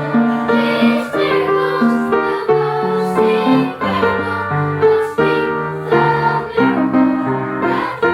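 Piano music, a melody of single notes played at a steady pace.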